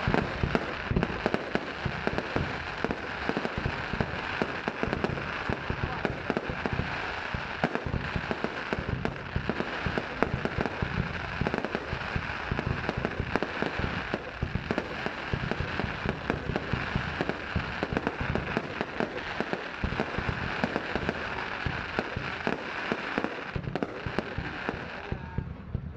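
Fireworks going off in a dense, unbroken stream of pops and crackles, thinning out just before the end.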